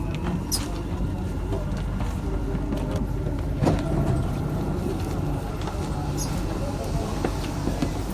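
Inside a Dubai Metro carriage: the steady low rumble of the train, with scattered clicks and knocks and a louder knock about three and a half seconds in.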